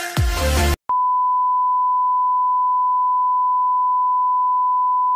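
Electronic music cuts off under a second in, followed by a steady, unbroken single-pitched test-tone beep: the reference tone that goes with TV colour bars.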